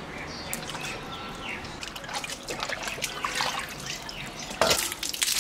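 Raw goose meat being washed by hand in a steel basin of water: small splashes and trickling as the meat is rubbed, then water streaming and dripping off it as it is lifted out. Near the end comes a single sharp, loud thud with a splash.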